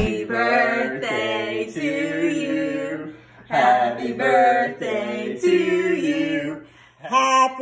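Adults singing a song together without accompaniment, in phrases broken by short pauses about three seconds in and near the end.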